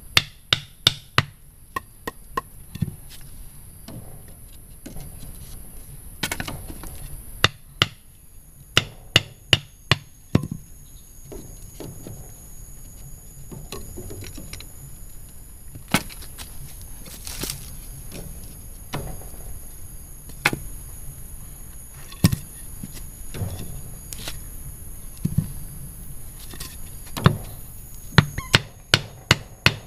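A tool striking wood again and again, sharp knocks in quick runs of four to six strokes with short pauses between, as in chopping or hammering timber for a fence.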